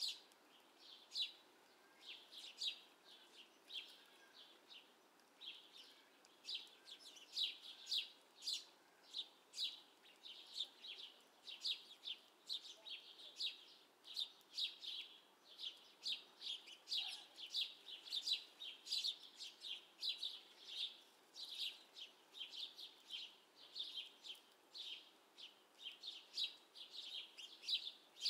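Small songbirds chirping: a busy, unbroken run of short, high chirps, about two or three a second.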